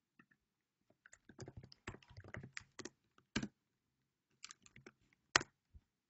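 Typing on a computer keyboard: quick runs of keystrokes with a short pause in the middle, ending with one louder keystroke near the end.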